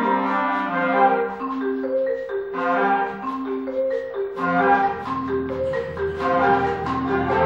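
Concert band music: a repeating figure of short, even notes on mallet percussion over held tones, with a low sustained note entering about halfway through.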